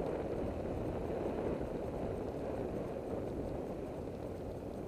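Bicycle tyres rolling over a dirt road: a steady, rough crunching and rattling, with wind buffeting the helmet camera's microphone.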